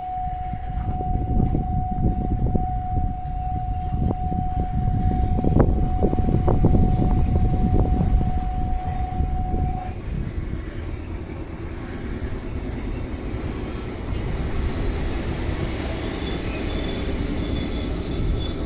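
Wakayama Electric Railway Kishigawa Line electric train running, a low rumble with clicks from the wheels that swells to a peak about six seconds in and then eases off. For the first ten seconds a steady high tone sounds alongside it, then cuts off.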